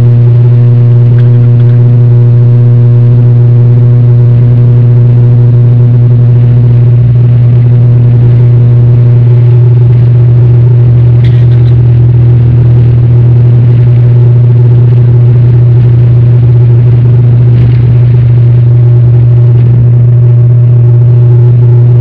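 Steady, loud low drone of an airliner's engines heard inside the passenger cabin in flight, with one of the higher hum tones dropping out about halfway through.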